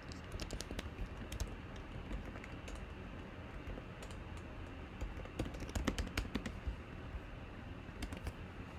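Typing on a computer keyboard: quick runs of keystroke clicks with pauses between them.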